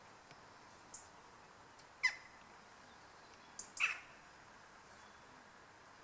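Two short bird calls about two seconds apart, each a quick downward sweep from high to low pitch, with a faint high chip just before each.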